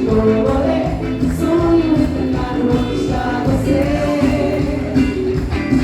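Band music with singing: a melody sung over a full accompaniment with a steady beat.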